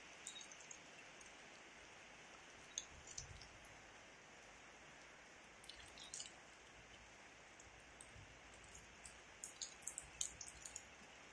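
Faint steady hiss of rain with scattered sharp drips of water, coming thicker near the end.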